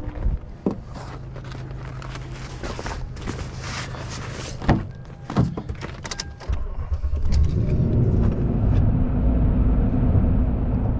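A pickup truck being got into: clicks, keys jangling and rustling over a low steady hum, with a couple of sharp knocks around the middle. From about two-thirds of the way in, a steady low rumble of the truck driving, heard from inside the cab.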